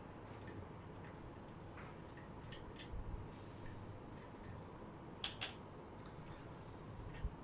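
Faint, scattered clicks and ticks of a screwdriver backing out small screws from an LCD monitor's housing. The clearest clicks come about three seconds in and a little after five seconds.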